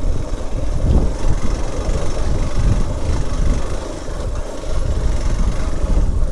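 Motorcycle running under way on a steep uphill road, with wind rumbling on the microphone.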